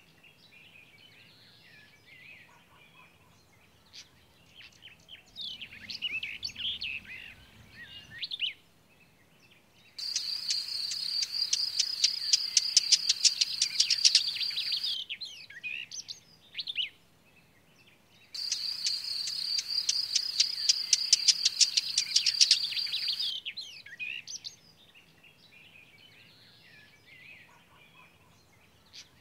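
Bird calls and twittering. Twice, for about five seconds each, a loud, rapid, rhythmic high-pitched chirping starts and stops abruptly.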